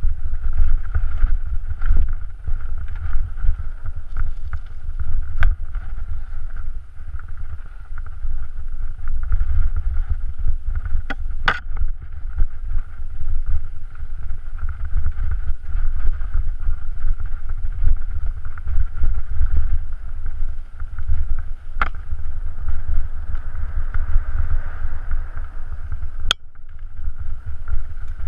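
Mountain bike descending a rocky forest singletrack at speed, heard as a continuous heavy wind rumble on the camera's microphone over the steady rattle of the bike. Four sharp knocks come through it, the loudest about 11 seconds in and near the end.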